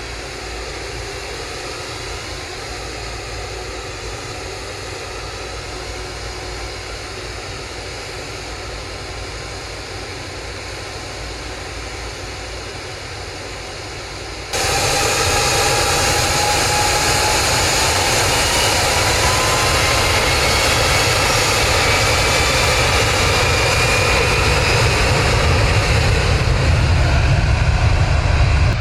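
Jet airliner noise: a steady rush of engines and airflow with faint engine tones. About halfway through it jumps suddenly much louder, and a whine then slowly rises in pitch.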